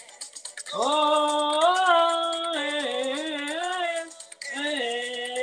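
A woman singing a gospel praise song with backing music, drawing out long held notes that bend up and waver, with a short break for breath just after four seconds in.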